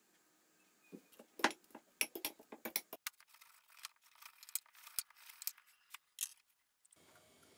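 A knife cutting through a crusty baguette, the crust crackling and snapping in a quick run of crisp clicks that stops shortly before the end.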